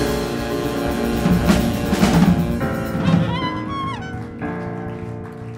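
Jazz quintet holding its final chord to close the tune: saxophone, archtop guitar, piano and double bass sustain together over drum and cymbal rolls. A high note bends in pitch about three seconds in, then the chord fades away.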